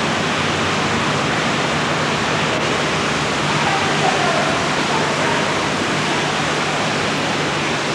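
A steady rushing noise like running water or hiss, with faint distant voices about four seconds in.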